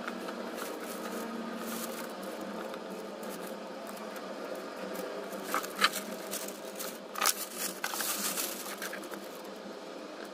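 Small resin diamond-painting drills rattling and clicking against a plastic drill tray as it is handled, in two clusters of clicks about halfway through and again a little later, over a steady background hum.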